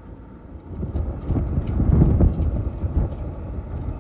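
A gust of storm wind buffeting the microphone, a low rushing noise that builds about a second in, peaks near the middle and eases off, with faint light ticks over it.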